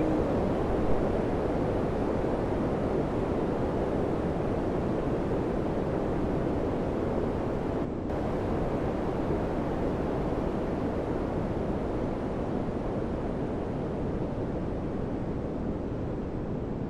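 Samsung air conditioner running, a steady rush of fan airflow with no tone or rhythm in it.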